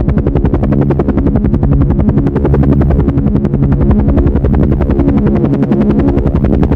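Helicopter running, loud, its rotor blades making a fast, even chop over a steady engine hum.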